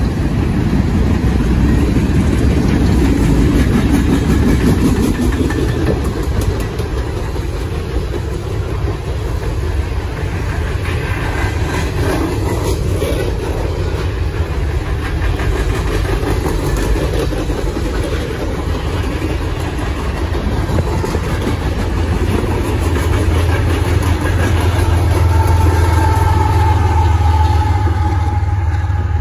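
A train running past with a steady, loud rumble of engines and rolling wheels. A thin high tone sounds for a few seconds near the end.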